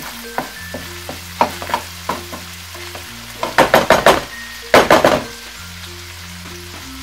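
A wooden spatula scrapes and taps in a stone-coated nonstick wok as flaked salmon and green peas are stirred and toasted in oil, with a light sizzle. Two louder runs of quick scraping strokes come a little past the middle.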